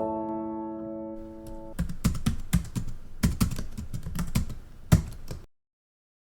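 A held musical chord that fades, then a few seconds of sharp, irregular clicks, several a second; the sound cuts off suddenly near the end.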